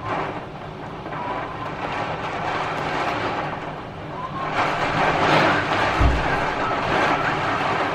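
Heavy rain and hail driven by strong wind: a dense rushing noise that grows louder about four and a half seconds in, with a low thump about six seconds in.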